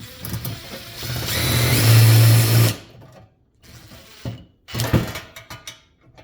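Power drill-driver running a screw into a nut to fasten a fan blade to its hub: one run of about three seconds that gets louder as it goes, then two short bursts.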